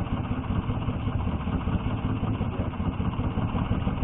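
Small boat's outboard engine running steadily.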